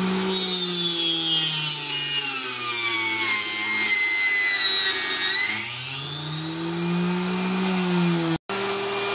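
Small benchtop table saw running and cutting a thin wooden strip: the motor's pitch sinks slowly as the strip is fed through the blade under load, then climbs back to full speed as the cut finishes. The sound drops out for an instant near the end.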